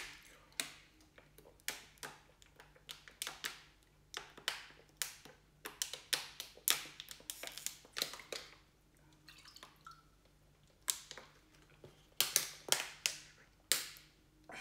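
Drinking from a thin plastic water bottle: a string of sharp clicks and crackles, swallows and the bottle's plastic crinkling as it is tipped up, with a short lull about nine seconds in and a quick cluster near the end.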